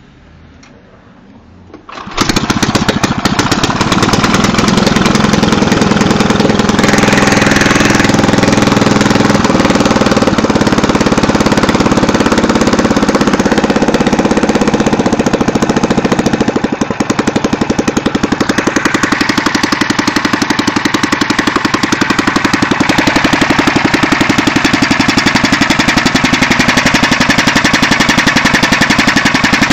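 A Jacobson Imperial 26 snowblower's 5 hp Tecumseh engine catches about two seconds in on a cold start with the choke on, then runs loud through a rusted-out muffler. The owner believes the ignition timing is off because of the muffler.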